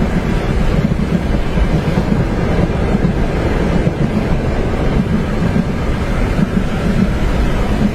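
Steady low rumble of a train running on its tracks, heard from inside a passenger compartment, with wind noise mixed in.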